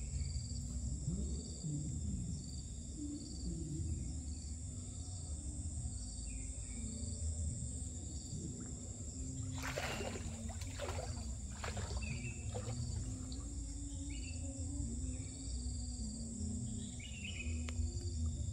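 Outdoor ambience: insects shrilling steadily with a chirp that pulses about twice a second, short bird-like calls every couple of seconds, and a low steady rumble. A cluster of brief sharp noises comes about ten to twelve seconds in.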